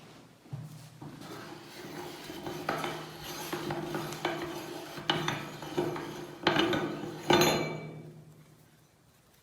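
Meat grinder running with a steady hum while grinding umbrella-shaped chocolates, with clattering and crunching and several sharp cracks, the loudest near the end, then the crunching dies away.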